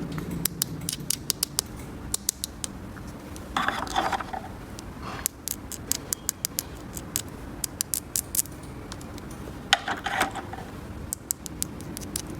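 Small plastic toy pieces being handled: a scatter of sharp clicks and taps, with two short rustles about four seconds in and again near ten seconds.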